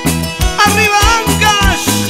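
Instrumental song intro: a steady bass beat about twice a second, with a wavering lead melody coming in about half a second in.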